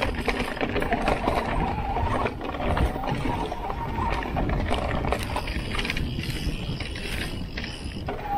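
Santa Cruz Heckler electric mountain bike ridden over a dirt trail. Its mid-drive motor gives a thin steady whine under pedalling, rising a little in pitch and fading after about five seconds, over tyre rumble, short rattling knocks from the bike and wind on the microphone.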